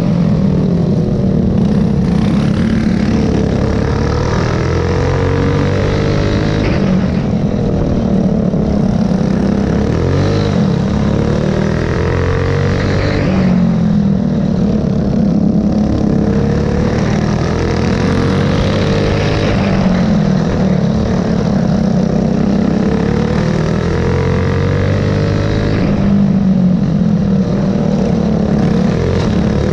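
Go-kart engine heard from onboard during a race, running hard, its pitch climbing and falling again in a repeating pattern every several seconds as it is worked around the oval, with other karts' engines close alongside.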